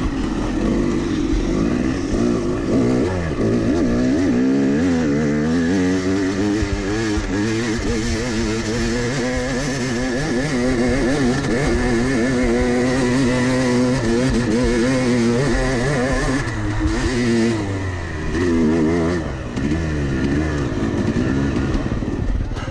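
Yamaha 250 cc two-stroke dirt bike engine heard on board, revving up and down as the bike rides and climbs a steep hill trail, with the pitch rising and falling continually. Near the end the engine eases off and drops lower as the bike slows.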